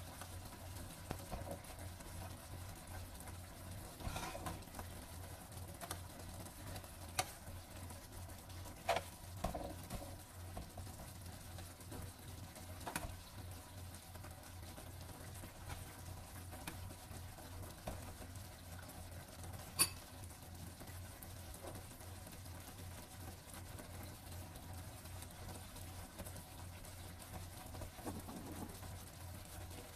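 Creamy mushroom sauce simmering in a frying pan while a metal spoon bastes it over pork patties, with a few light clinks of the spoon against the pan over a steady low hum.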